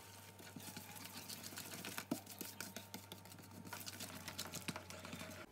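Wire whisk beating sugar into batter in a bowl: rapid, uneven clicking and scraping of the wires against the bowl.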